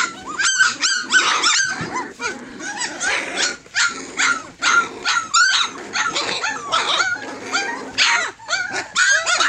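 A litter of nearly three-week-old Tosa Inu puppies yipping and squealing, many short high-pitched calls that rise and fall in pitch, several a second and overlapping.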